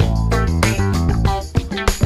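Background music with guitar and bass and a steady beat.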